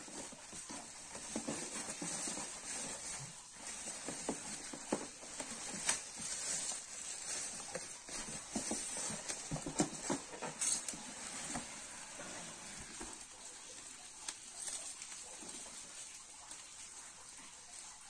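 Plastic wrapping crinkling and a cardboard carton rustling as a boxed water heater is handled and lifted out, with irregular crackles and small knocks over a steady hiss.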